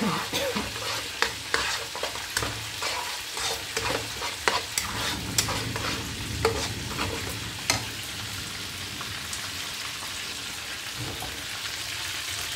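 A silicone spatula stirring and scraping a sizzling blended chili spice paste in a nonstick wok, with frequent sharp scrapes and taps for the first eight seconds or so. After that the strokes thin out and a steady frying sizzle carries on.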